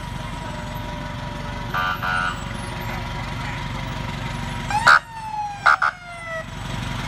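Fire engine passing slowly with its engine running, giving two short horn blasts about two seconds in, then louder horn blasts and a brief siren whoop around five seconds that rises and then falls away.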